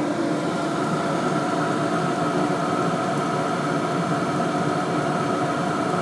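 Hcalory HC-A01 portable diesel heater running at maximum power: a steady whir from its fan and burner with a thin, unchanging whine over it.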